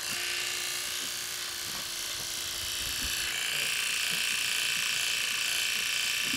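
Electric pet clippers running with a steady high hum while shaving a cat's matted coat. The hum grows a little louder and brighter about three seconds in.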